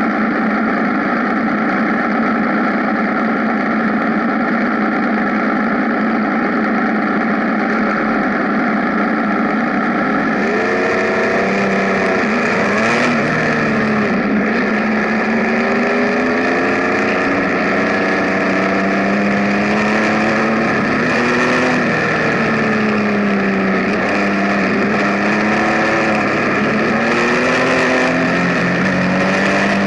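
Benelli Tornado Tre 1130 TNT motorcycle's inline three-cylinder engine under way, holding a steady note for the first ten seconds or so. After that the revs rise and fall again and again with throttle and gear changes.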